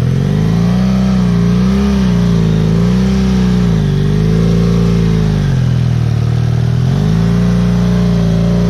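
Off-road vehicle engine revving up and down in repeated waves, about once a second, held on the throttle through a slippery hill climb.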